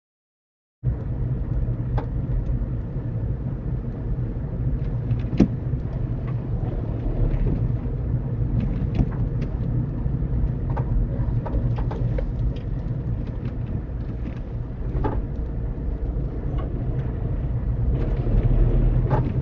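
Car cabin noise picked up by a dash camera: a steady low engine and road rumble while driving, with scattered small clicks and knocks. It starts abruptly about a second in.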